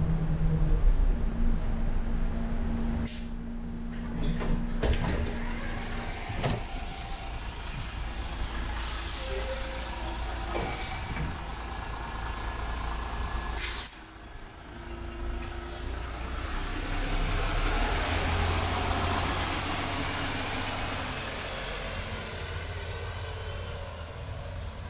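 MAN Lion's City double-decker diesel bus at a stop, with a hiss of compressed air from its air brakes. It then pulls away, its engine and road noise swelling about two-thirds of the way in and fading near the end.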